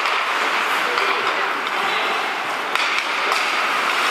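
Ice hockey rink during live play: a steady hiss of skates on ice and arena noise, with a few sharp clacks of sticks and puck.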